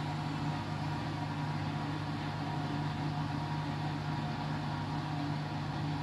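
Candy washing machine on its final spin: the drum spins at a steady speed with an even motor hum and whine that holds one pitch throughout.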